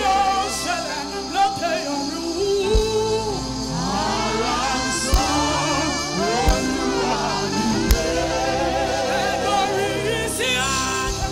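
Live gospel worship singing: a vocal group of women sings into microphones over a live band, with a low drum hit every second or two.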